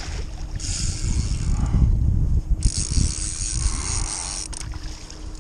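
Fishing reel clicking as line is wound in while playing a salmon, in two stretches of about two seconds each, over low rumble from handling in the kayak.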